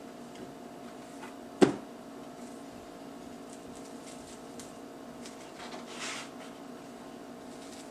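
Workbench handling of a plastic-wrapped knife and a damp leather sheath blank: one sharp knock about one and a half seconds in, then soft rustling of plastic wrap and leather near the end, over a steady low hum.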